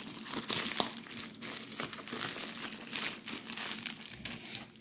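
Packaging crinkling and rustling as it is handled and pulled open by hand, with many small crackles, dying down just before the end.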